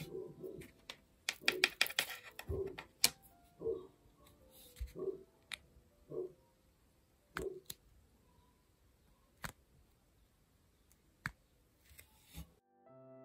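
A dog barking again and again, about one bark a second, alert barking at people walking past the house. Sharp clicks and taps of a diamond-painting pen and resin drills on the canvas, a quick cluster of them early on and single ones after.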